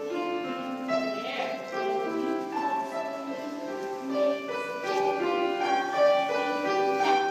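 Instrumental classical music led by piano, a slow melody of held notes changing about once a second.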